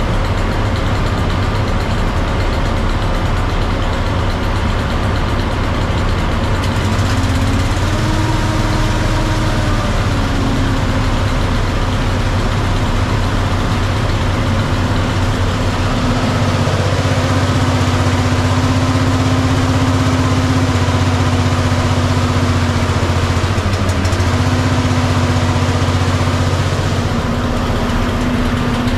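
Fire truck's engine running at idle. Its pitch rises briefly about seven seconds in and settles again, and from about sixteen seconds it runs with a heavier, steadier low hum.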